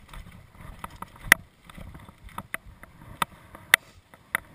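Mountain bike descending a rough dirt forest trail: a low rumble from the tyres on the ground, broken by about five sharp clacks and rattles from the bike as it goes over bumps. The loudest clack comes a little over a second in.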